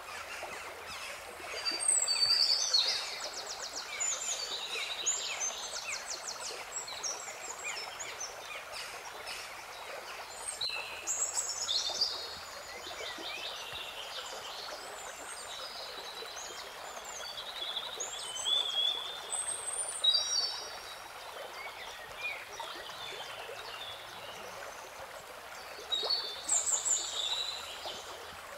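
Birdsong over the steady rush of a flowing stream: clusters of quick high chirps and trills come every several seconds above the even water noise.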